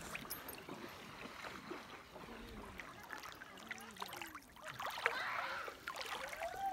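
Shallow lake water lapping and splashing lightly, with a louder slosh about five seconds in. Faint voices in the distance.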